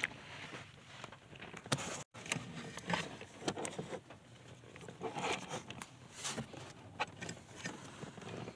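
Irregular light clicks, rustles and scrapes of hands handling car wiring and its connections.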